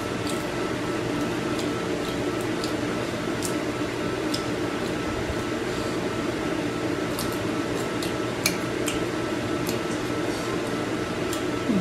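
Kitchen cooking sounds: scattered light clicks and clinks of utensils over a steady background noise.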